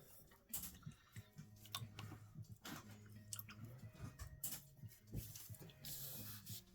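Faint scattered clicks and taps of a paintbrush working paint on a palette, with a low hum that comes and goes underneath and a short hiss near the end.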